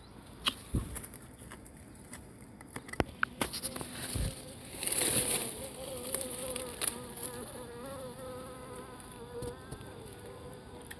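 Bees from a wild nest in a tree hole buzzing close by, a steady wavering drone that sets in about halfway through. Before that come a few scattered knocks and scrapes.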